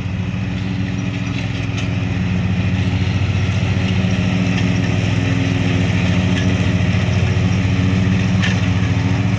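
Cub Cadet Pro Z 154S zero-turn mower's engine running steadily as the mower drives across the grass, growing louder over the first few seconds as it comes closer.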